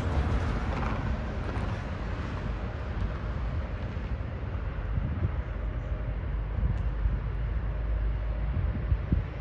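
Boeing 737-800's CFM56-7B jet engines at low taxi thrust as the airliner rolls along the taxiway: a steady deep rumble under a broad hiss, with no change in power.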